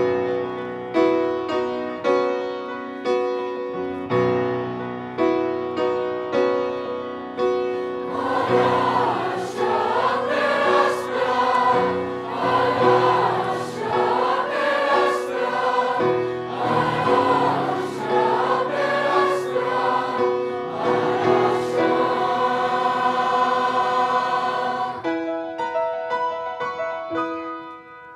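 A grand piano begins an introduction with a sudden start. About eight seconds in, a mixed junior-high choir comes in singing over the piano accompaniment. Near the end the choir stops and the piano carries on alone.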